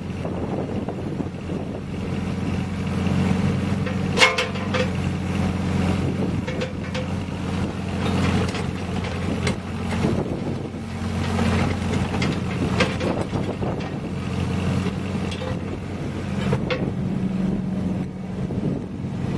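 Yanmar ViO15 mini excavator working, its small diesel engine running steadily while the machine tracks and slews. A few sharp knocks sound over it, the loudest about four seconds in.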